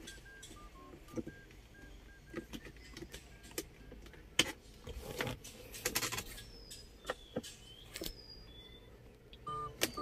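Scattered light clicks and knocks of a screwdriver and plastic console trim being handled, loudest in the middle, with short beeping tones near the start and again near the end.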